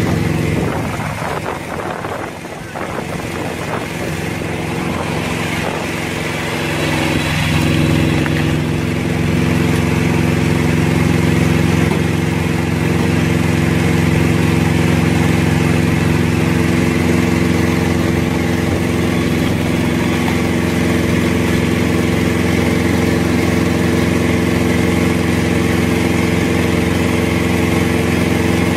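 Tractor engine running steadily as it drives a PTO-powered cone log splitter, with logs pressed onto the spinning screw cone. In the first few seconds the level drops briefly and a few knocks come through as the wood splits.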